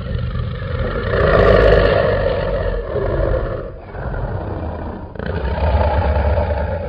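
Dragon roar sound effect: a run of deep, long roars over a low rumble, the loudest about a second in.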